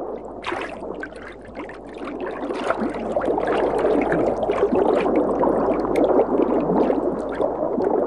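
Creek water rushing and gurgling over gravel, with a dense crackle of small clicks; it grows louder after about two seconds.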